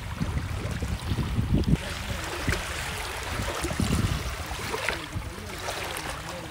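Wind buffeting a phone microphone: an irregular low rumble.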